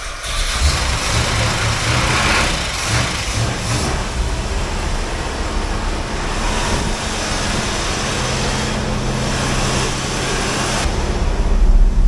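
Plymouth 'Cuda's 383 big-block V8 running after a hard start, getting louder near the end. The mechanic found spark and fuel present and puts the hard start down to old spark plugs and a choke that may let it flood.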